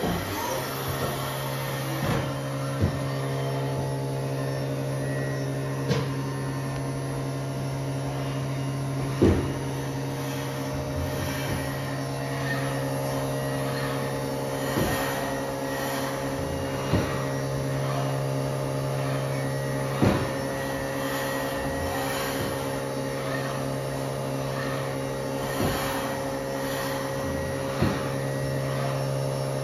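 Haas VF-6/40 CNC vertical machining center running under power: a steady mechanical hum with a low tone and its overtones, setting in just after the start. Light clicks come every couple of seconds.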